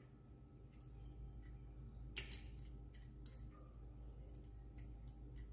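Faint clicks and taps of test probes being placed on the motor's terminal box, the clearest about two and three seconds in, over a low steady hum.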